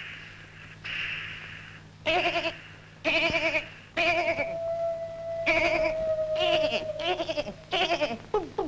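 Wavering, bleating tones with a heavy vibrato in short speech-like phrases, with one note held for about two seconds in the middle. This is an instrument or sound effect standing in for a puppet officer's ranting voice.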